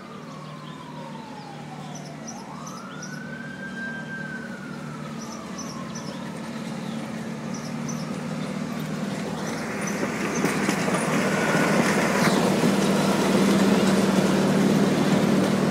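Miniature park train approaching and passing close by: its locomotive runs with a steady low hum, and the rumble of the engine and wheels on the track grows louder through the second half. In the first half a distant siren wails slowly down, up and down again.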